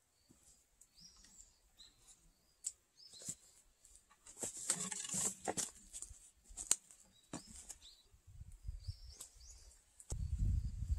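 Small birds chirping faintly, with scattered light knocks and a brief scraping rustle as the log is handled and walked around in the sawdust. Near the end a low rumble sets in.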